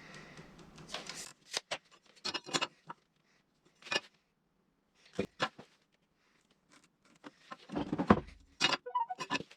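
Scattered small taps, clicks and knocks of hand tools such as a tape measure and pencil being handled on wood while marking out timber, with a louder run of knocks near the end.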